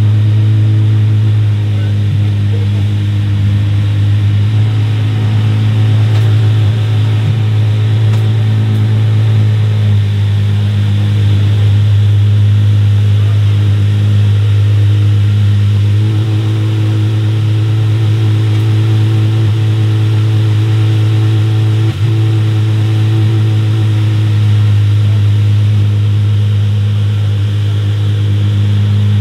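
Apollo IE's 6.3-litre naturally aspirated V12 idling steadily, with no revs.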